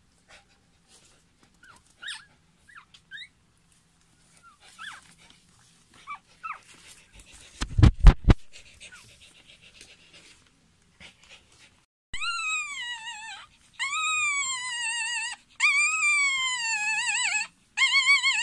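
Newborn poodle puppy squeaking faintly, then crying in a run of loud, high cries, each rising and then falling in pitch and lasting about a second, four or five in a row. A brief cluster of low thumps about halfway through is the loudest sound.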